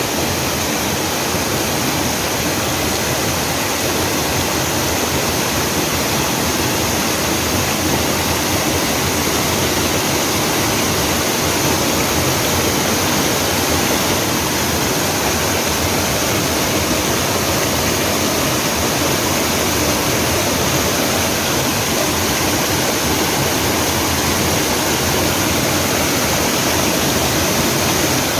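Mountain stream water pouring over rocks in a small waterfall, a steady loud rush.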